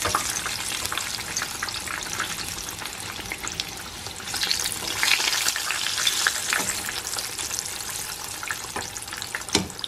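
Breaded pickle spears frying in hot oil in a pan: a dense, steady crackle of small pops, a little louder for a couple of seconds in the middle.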